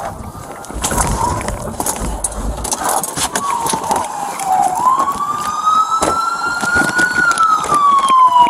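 Police car siren on a slow wail, its pitch rising for a couple of seconds and then falling slowly, starting to climb again near the end. Knocks and rustling in the first few seconds.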